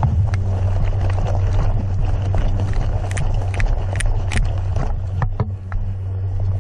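Footsteps crunching on dry leaves and grass at a brisk pace, about two steps a second in the middle, over a steady low rumble of wind and movement on a body-worn camera microphone.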